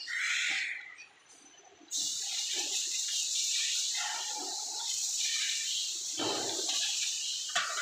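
Cordless drill driving a screw into the metal table frame, a short burst about six seconds in, over a steady hiss of workshop noise.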